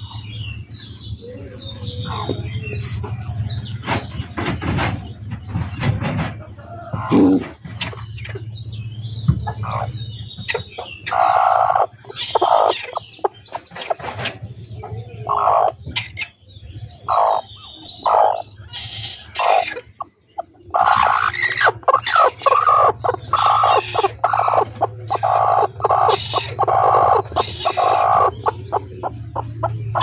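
Broody Aseel hen clucking in many short, repeated calls, over a steady low hum.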